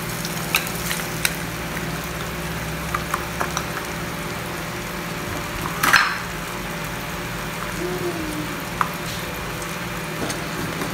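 Eggs frying in a frying pan: a steady sizzle with scattered small pops and crackles. A single louder clatter about six seconds in.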